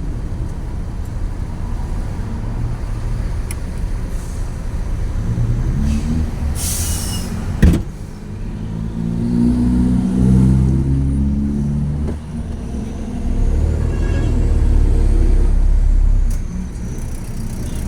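Truck's diesel engine running, heard from inside the cab, with a short air hiss about seven seconds in and a sharp clunk just after it. The engine then revs up and down through gear changes and drops away near the end as the truck pulls over.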